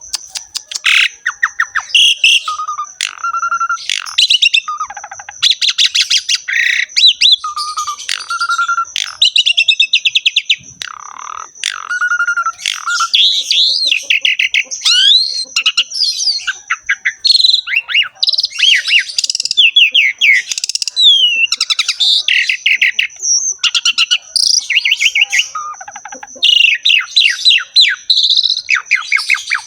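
Asian pied starling (jalak suren) singing continuously in full song. It strings together fast runs of repeated chattering notes, whistled slurs and harsh rattling phrases, with short gaps between them. A faint steady high tone runs underneath throughout.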